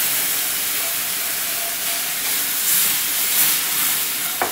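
Milk hissing and sizzling as it is poured into a hot pan of flour fried in oil: the start of a white sauce. The hiss is steady, with a few louder surges.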